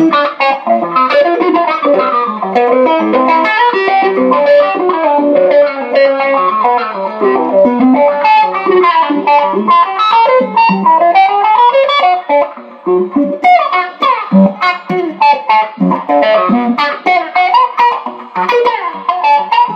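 Electric guitar played solo: a fast, continuous run of quick single notes and melodic lines, each note picked in quick succession.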